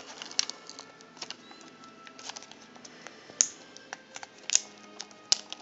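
Scattered crinkles and sharp clicks as foil tape and stickers are peeled off a laptop LCD panel's display-cable connector, with fingers handling the panel. Faint music plays underneath.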